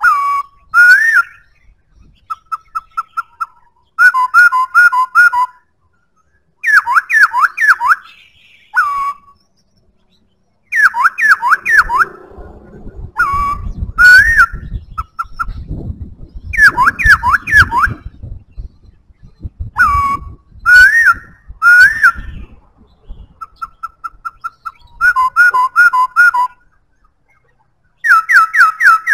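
Black-throated laughingthrush singing: loud, clear whistled phrases of quickly repeated notes, each phrase about a second long, with short pauses between. A low rumble runs under the song through the middle stretch.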